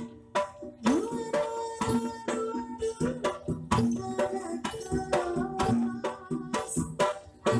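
Gamelan accompaniment for a jaranan (kuda lumping) dance: quick hand-drum strokes over ringing metallophone notes. The music drops out briefly at the start, then resumes.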